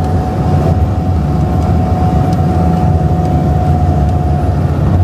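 Car cabin road and engine noise while cruising on a motorway: a dense low rumble with a thin steady whine over it.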